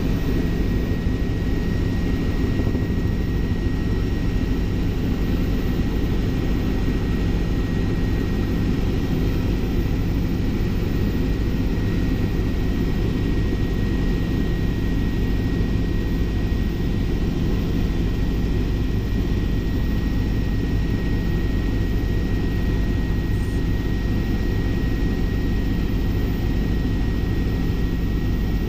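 Helicopter in flight, its engine and rotor running in a steady low drone with a thin, steady high tone over it.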